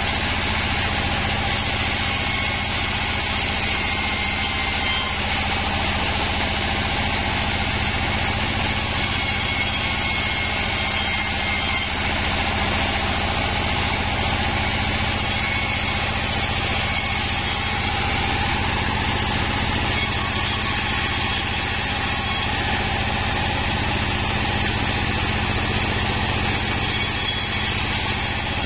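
Sawmill sawing machine running steadily as wadang wood planks are fed through it. It makes a constant mechanical drone with a low hum and no pauses.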